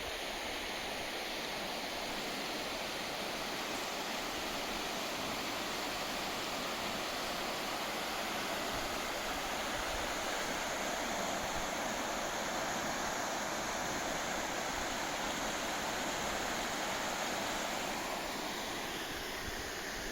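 Uono River water rushing past in a steady, unbroken wash of noise.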